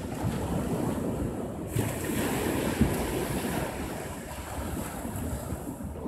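Small sea waves breaking and washing up a sandy beach, over a low, gusty rumble of surf and wind on the microphone. About two seconds in, the hiss of a wave's foam swells, then eases off near the end.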